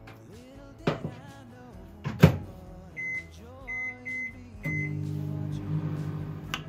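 Microwave oven: a knock, then the door shut with a sharp thunk, four short beeps as its buttons are pressed, and the oven starting up and running with a steady low hum. Soft background music underneath.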